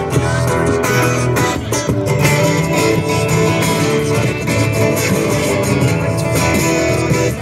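Two acoustic guitars strummed together in a lively tune, played through a small street amplifier.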